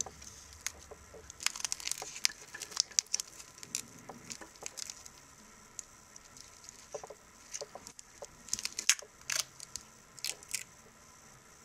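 Protective plastic film being peeled and crinkled off the stainless steel bracelet of an Addiesdive AD2066 watch, with small clicks from the bracelet links and clasp being handled. The crackling comes in scattered bursts, busiest twice.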